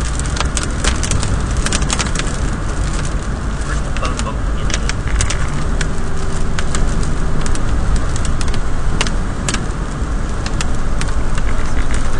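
Car driving through a storm, heard from inside the cabin: a steady low road and engine rumble, with raindrops striking the windshield and body in scattered, irregular sharp taps.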